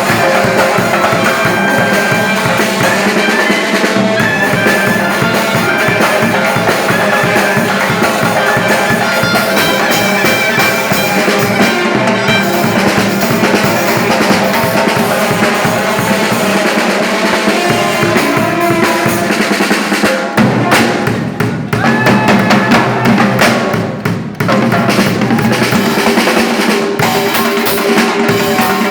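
Loud music with drums keeping a steady beat under a melody line. The loudness dips briefly twice about two-thirds of the way through.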